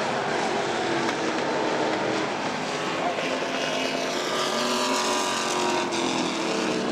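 Several dirt-track stock car engines running around the oval, their pitch rising and falling as the cars come round and pass.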